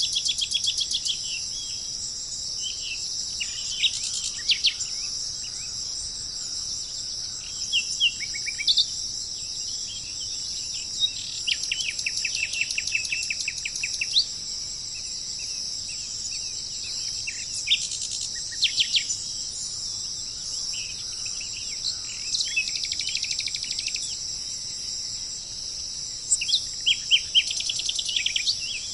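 Steady high-pitched chorus of insects, with bird calls breaking in every few seconds as rapid runs of repeated notes, the longest lasting about two seconds.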